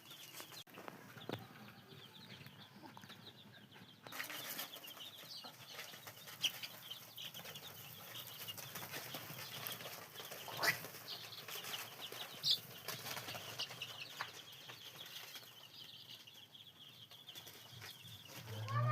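Chickens calling, with many short, high chirps scattered throughout and a few brief clicks.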